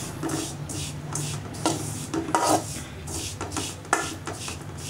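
Rolled oats dry-roasting in a pan, stirred with a spatula: irregular scrapes of the spatula against the pan and the rustle of the dry flakes, about one stroke every half second. A low steady hum runs underneath.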